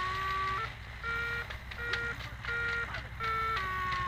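Electronic variometer tone from the glider's telemetry: a steady tone that slowly rises, then breaks into four short beeps a little under a second apart, then goes back to a steady, slowly falling tone near the end. Switching from a steady tone to beeps is the usual vario signal that the glider has gone from sinking to climbing.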